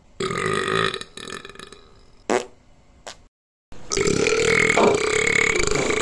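Human burping: a short, loud burp just after the start, then after a brief cut to silence a long, drawn-out burp held at a steady pitch from about four seconds in.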